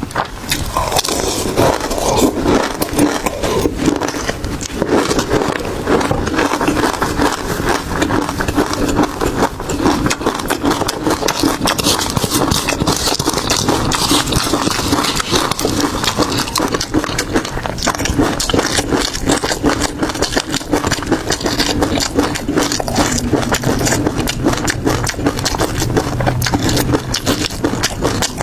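Close-miked eating of shelled seafood: steady chewing and crunching, with a dense run of crackles, scrapes and clicks.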